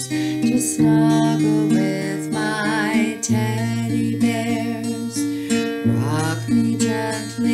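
A woman singing a lullaby over a steadily strummed acoustic guitar, holding long notes with vibrato.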